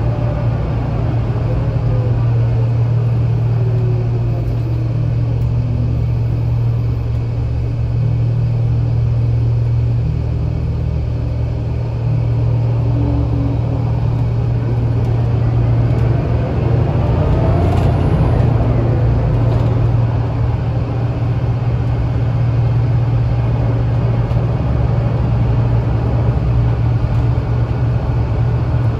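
Scania L94UA city bus running along the road, heard from inside the passenger cabin: a steady low drone of engine, drivetrain and road noise. In the first few seconds a whine falls in pitch, and about halfway through the noise swells and fades again.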